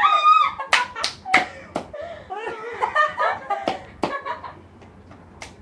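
A high-pitched squeal, then laughter broken by a series of sharp smacks at irregular intervals, like hands slapping.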